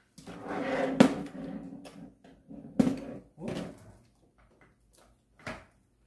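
Plastic parts of a cordless stick vacuum being handled and fitted together: rustling, with sharp clicks and knocks about a second in, near three seconds and again near the end.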